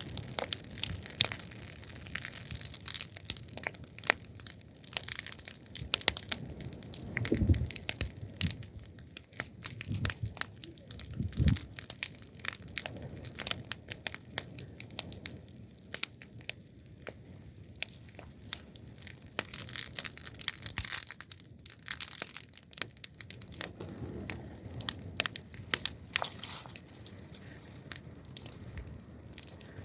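Fire crackling: dense, irregular sharp pops and snaps over a soft hiss, with a couple of low thuds about a quarter and a third of the way in.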